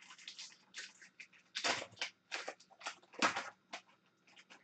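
Foil wrapper of an Upper Deck Tim Hortons Team Canada hockey card pack being torn open and crinkled by hand: a quick run of crackling rustles, loudest about a second and a half and three seconds in.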